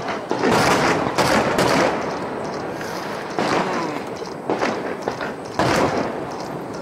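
Aerial firework shells bursting: about four sharp bangs in quick succession in the first two seconds, then three more spaced about a second apart, each trailing off in a rolling echo.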